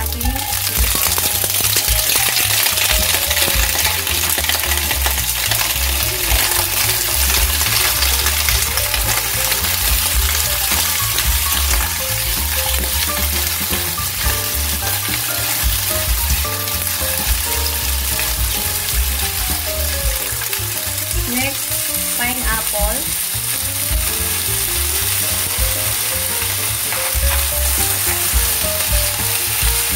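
Onion and bell pepper pieces sizzling steadily as they sauté in hot oil in a frying pan, with the soft scrape and stir of a spatula moving them around.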